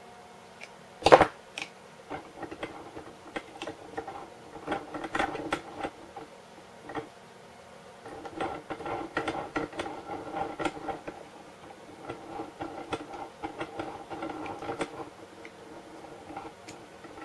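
A small USB power supply's hard plastic case, fused shut as if welded, being pried and cracked open with a tool while clamped in a bench vise. There is a sharp crack about a second in, then runs of rapid clicking and scraping.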